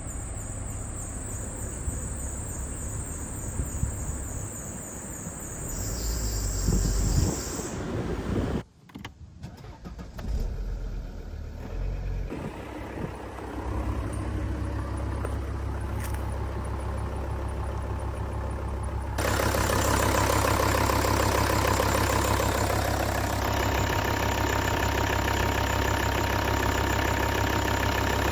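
Volvo V70 D3 five-cylinder diesel engine running at idle, with noise from the auxiliary drive belt's tensioner pulley, which the owner takes for a bad pulley bearing. The sound breaks off briefly about nine seconds in and gets noticeably louder about nineteen seconds in.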